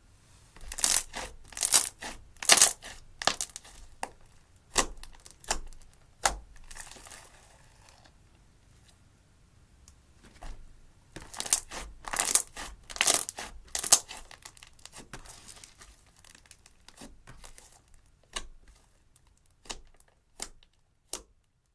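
Slime being squeezed and pulled by hand, giving flurries of sharp crackling pops about a second in and again around eleven seconds in, with scattered single pops toward the end.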